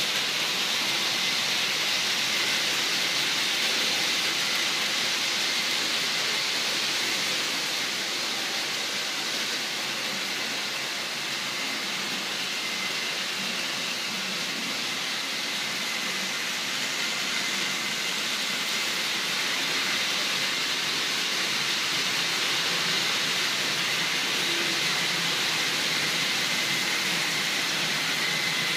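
Model trains running on a layout's track: a steady rolling hiss of wheels on rail with a faint steady whine, dipping a little in the middle and rising again.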